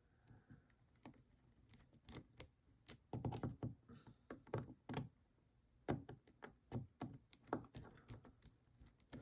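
Irregular small clicks and taps of metal knife parts, screws and tools being handled while a folding knife is put back together.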